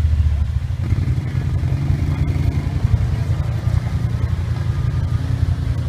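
Side-by-side UTV engine running with a steady low rumble as it climbs a muddy trail. The engine's pitch rises and then eases off over the first few seconds.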